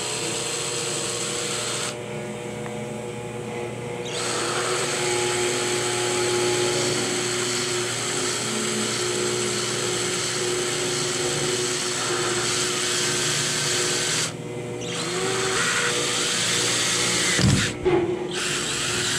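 Cordless drill with a 5 mm twist bit boring a pilot hole through a fibreglass kayak hull, the motor running steadily with a short pause about fourteen seconds in.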